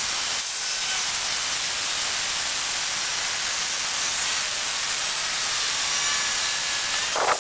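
Angle grinder cutting into a car's steel rocker panel, a steady hissing whine with sparks flying off the disc, stopping near the end.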